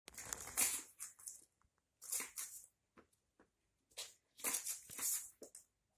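A cat batting a small crumpled ball about, with its paws scuffing the floor and the plastic litter-tray grate: short bursts of crinkling and scratching, several over a few seconds, with small taps in between.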